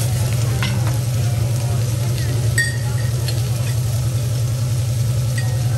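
Metal spatula scraping and clinking on a steel teppanyaki griddle over a faint sizzle, with a ringing metal clink about two and a half seconds in, all over a steady low hum.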